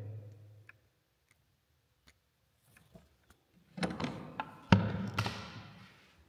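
A few sharp knocks and clicks as a hand handles the small hinged door of an altar tabernacle, starting a little after halfway, then a brief scraping rustle.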